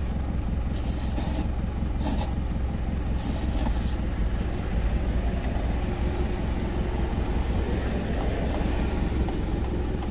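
Truck engine idling steadily in the cab, with three short slurps of rice noodles in the first four seconds.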